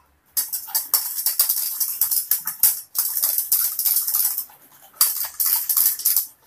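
Wire whisk beating a thin cocoa-and-milk mixture in a stainless steel bowl: fast rattling and scraping of the wires against the metal, stopping briefly about four and a half seconds in, then starting again.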